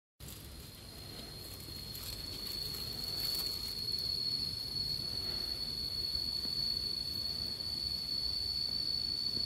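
Insects droning in a steady high-pitched trill, starting abruptly after a moment of silence and growing louder over the first few seconds, over a faint low rumble.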